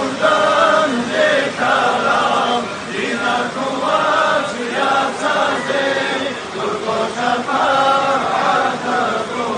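A group of men's voices chanting together in a devotional supplication addressed to the Prophet, asking to be saved from hellfire. The chant moves in long held notes that step from pitch to pitch without a break.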